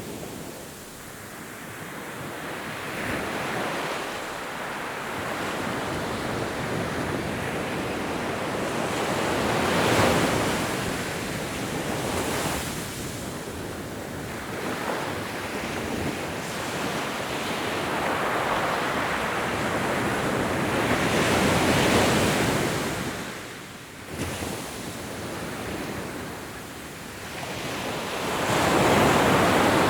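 Ocean waves breaking and washing up the shore: a steady rushing that swells into louder surges as each wave comes in, with a brief lull a little past two-thirds through.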